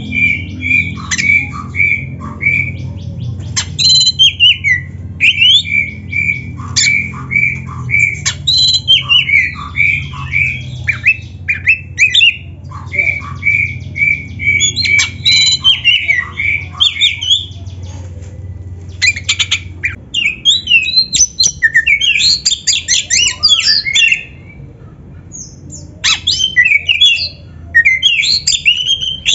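Oriental magpie-robin (kacer) singing vigorously: runs of quickly repeated clear whistled notes alternate with varied fast phrases and harsh rasping calls, with a short pause a few seconds before the end. A low hum sits underneath and stops about two-thirds of the way through.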